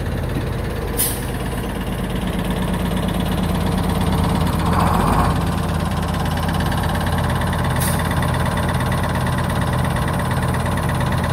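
Diesel engine running steadily as a 1948 GMC Silversides bus with a Detroit Diesel 6-71 two-stroke rolls slowly onto a truck scale, with a semi truck's engine idling close by. Two brief high hisses come about a second in and again about eight seconds in.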